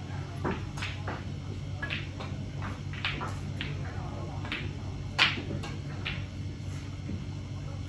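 Snooker balls clicking against each other and the cue: a string of sharp, irregular clicks, the loudest just after five seconds, over a steady low room hum.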